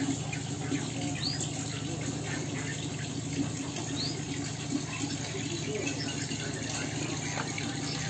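Steady background noise, an even hiss over a low hum, with two brief faint rising high chirps about a second in and again about four seconds in.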